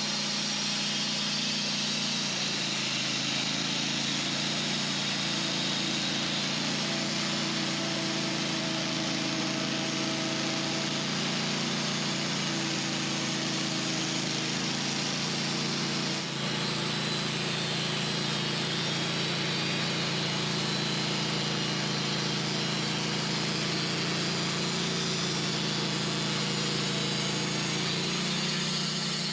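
Wood-Mizer band sawmill running steadily under load, its engine holding a constant note while the band blade cuts a honey locust log, with a brief dip about halfway.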